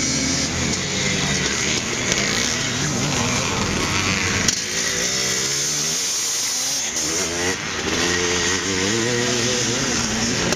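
Several vintage motocross bikes racing on a dirt track, their engines revving and easing off in turn as they take a jump, with one bike passing close by.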